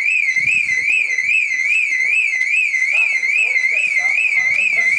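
Loud electronic warbling alarm, one high tone sweeping evenly up and down about two and a half times a second, with faint voices beneath it.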